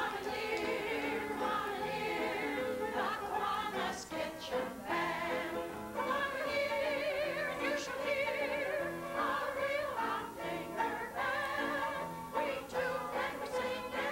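A group of elderly women singing a song together, with a wavering vibrato on the held notes.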